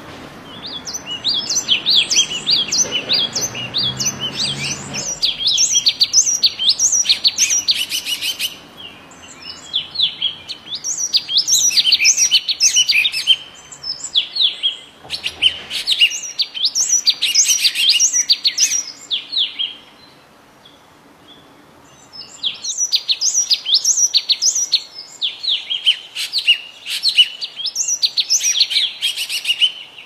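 Small songbird singing bursts of rapid, high chirping notes, each burst lasting a few seconds, with a pause of about two seconds about two-thirds of the way through.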